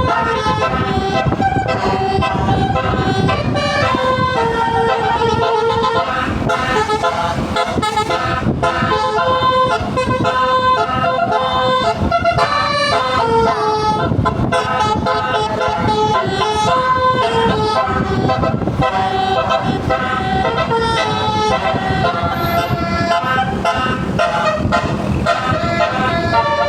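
Basuri musical bus horn playing a tune, its notes stepping up and down without a break, over a low rumble.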